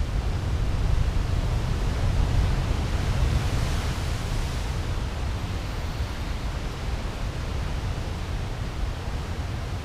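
Wind rumbling on the microphone over a steady hiss of surf, with a swell of hiss about four seconds in.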